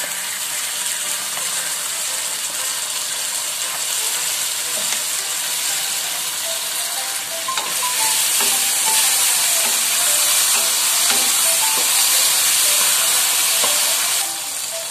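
Sausage pieces sizzling steadily in hot margarine in a wok. The sizzle grows louder about halfway through, as teriyaki sauce goes in and is stirred through with a spatula.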